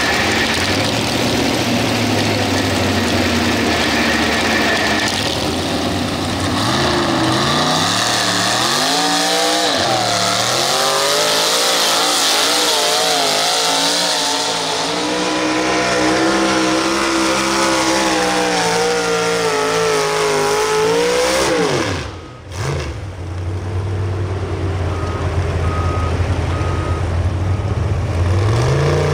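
Naturally aspirated two-wheel-drive pulling truck engine idling, then revving up about six seconds in and running hard at high rpm, its pitch wavering as it pulls the weight-transfer sled. About 22 seconds in the revs fall away sharply as the throttle comes off, and the engine drops back to idle.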